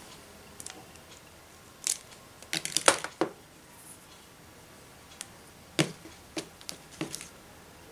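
Scattered clicks and short rustles of an HDMI cable being handled, with a tight cluster of sharp clicks about three seconds in and a few more near the end.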